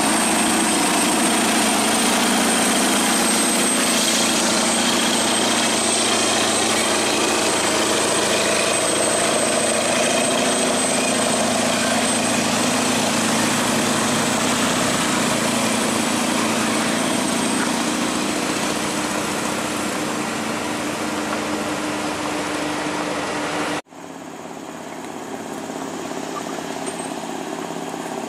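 Scania R580 truck's V8 diesel engine running steadily under load as it hauls a heavy excavator on a lowboy trailer close by. Near the end the sound cuts off suddenly and gives way to the same kind of truck engine, quieter and farther off.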